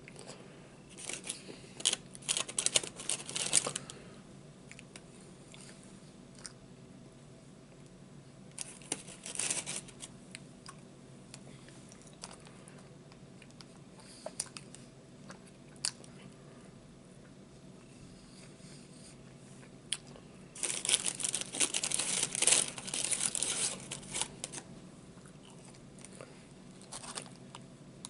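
Paper food wrapper crinkling and tearing in three bursts, about a second in, around nine seconds in and from about twenty seconds in, with close-up chewing and small clicks in between.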